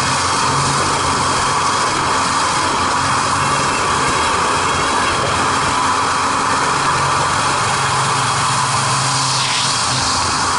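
MX2 aerobatic aircraft's piston engine and propeller running steadily in flight, heard from an onboard camera with heavy wind rush over the microphone.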